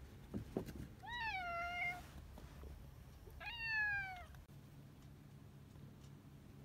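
A domestic cat meowing twice, two drawn-out meows about two seconds apart, each rising briefly and then falling in pitch. A short low thud comes just before the first meow.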